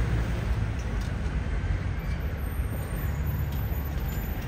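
Road traffic: a steady low rumble of buses and cars running, with a few faint clicks.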